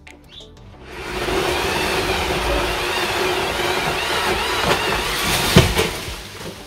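Petrol chainsaw engine running hard for about five seconds, with a wavering whine as the revs shift, and a sudden sharp crack near the end.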